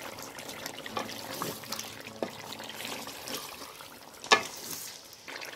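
Chicken pieces sizzling in ghee in a karahi while a spatula stirs them with ginger-garlic paste, scraping and clicking against the pan, with one sharp knock about four seconds in.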